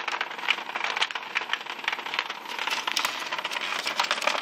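Battery-powered Hexbug vibrating robot toys rattling against a plastic habitat, a dense, irregular clicking and clattering.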